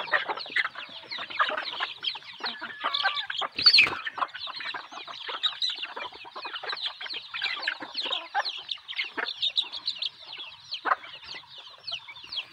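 Flock of desi chickens calling, many short high calls overlapping continuously, with one louder, sharper call about four seconds in.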